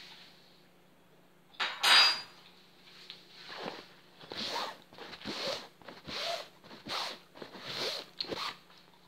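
Handling of kitchen things on a table: a sharp clatter about two seconds in, then a run of short scraping, rustling strokes about twice a second.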